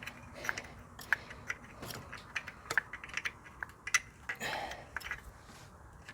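Metal hand tools clinking as they are handled: a run of irregular light clicks and taps, several a second.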